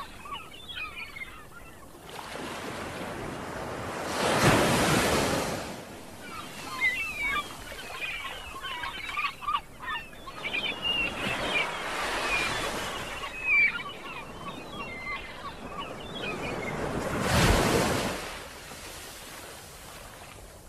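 Sea waves washing in over rocks, swelling into two big surges, about four seconds in and again near the end, with short high chirps over the wash.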